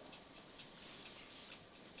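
Faint crackling of a wood fire in a stove: small irregular pops and ticks.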